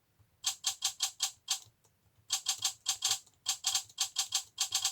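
Keystroke click sound effects from a typing app, played through the Onyx Boox Max 3 tablet's built-in speakers as keys are typed, in quick irregular runs of crisp clicks with a short ring to each.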